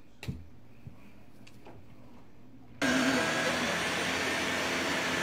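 A few soft knocks in a quiet room, then an upright vacuum cleaner's motor running steadily and loudly, cutting in abruptly about three seconds in.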